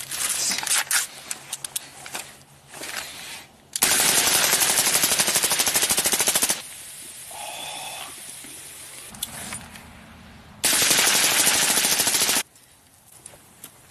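Foil crinkling and handling clicks, then an AR-style rifle firing two long, rapid strings of shots, the first about two and a half seconds long and the second about two seconds, a few seconds apart.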